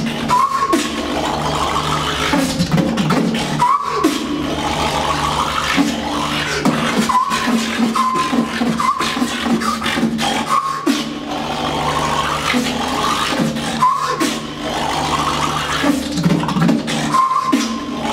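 Solo beatboxing: a continuous run of mouth-made drum hits over a steady low buzzing bass, with short pitched slides and scratch-like sounds cut in every second or two.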